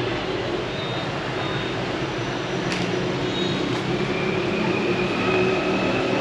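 City street traffic at night: a steady wash of motorbike and car engines and tyres passing below, with a thin whine rising slightly in the second half.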